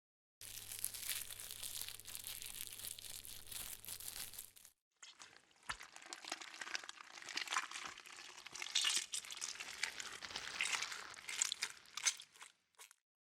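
Squashy, wet slime sound effects made from recordings of homemade PVA-glue slime being squeezed: two takes of dense squelching and crackling, the first about four seconds long with a low hum under it, the second longer with irregular pops.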